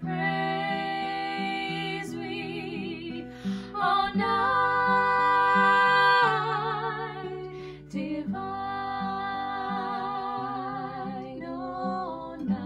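Two women singing together over an acoustic guitar accompaniment, with long held notes that waver in vibrato and short breaths between phrases about three and a half and eight seconds in.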